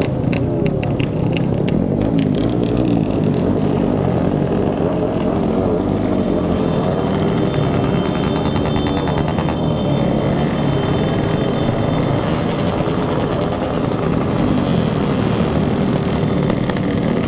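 Several motorcycle engines running and revving together in slow street traffic, their notes rising and falling and overlapping. There is a stretch of rapid ticking about six to ten seconds in.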